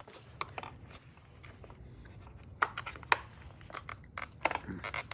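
Steering-wheel parts being handled and pressed together by hand: scattered clicks and rustling, with two sharper snaps a little past the middle.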